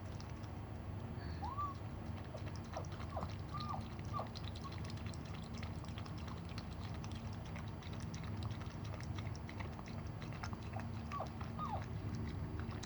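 Dog whimpering in short, high, squeaky calls that bend up and down, in a cluster over the first few seconds and again near the end, during a difficult whelping. A steady low hum runs underneath.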